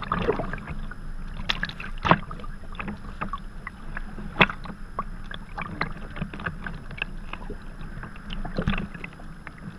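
Small waves slapping and lapping against a sea kayak's hull, with irregular sharp splashes and drips from paddle blades dipping in the water; the sharpest slaps come about two and four and a half seconds in.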